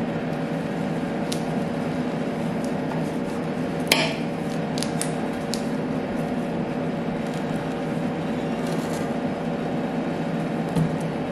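Steady hum of a rolled ice cream machine's refrigeration unit running, with a few light clicks and one sharp knock about four seconds in as a knife and avocado halves are handled on its frozen steel plate.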